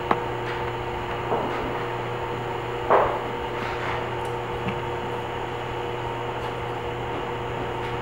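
Steady low electrical hum of room tone, with a few faint clicks and one short knock about three seconds in.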